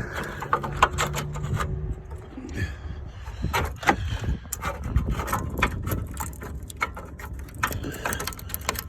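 Irregular light clicks, knocks and scrapes of hands handling parts and a small wire cable in a car's engine bay, with a steady low hum for the first couple of seconds.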